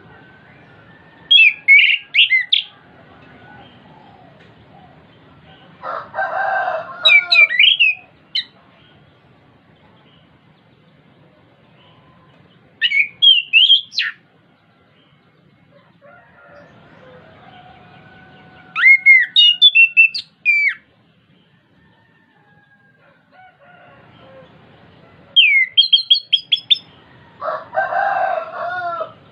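Chestnut-capped thrush (anis kembang) singing in short phrases of quick, high whistled notes and trills, five phrases several seconds apart. Twice a lower, coarser call of about a second and a half sounds along with the song.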